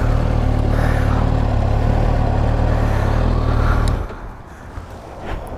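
A Kawasaki ZX-6R's inline-four with an Akrapovic slip-on exhaust runs steadily at low revs, then drops away sharply about four seconds in.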